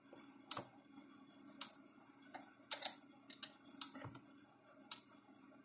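Electric Shepherd ESM 200 electric fence energizer clicking as it fires its pulses, a sharp click about once a second, each click a high-voltage pulse going out to the fence terminal. A faint steady hum lies underneath.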